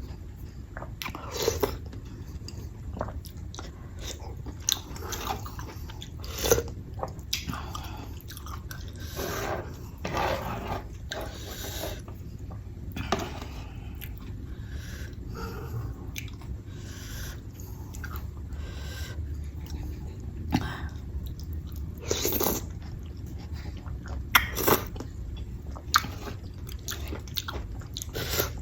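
A person chewing and eating close to the microphone: soft wet mouth sounds with short smacks and clicks at irregular intervals. The food is curry and sticky rice.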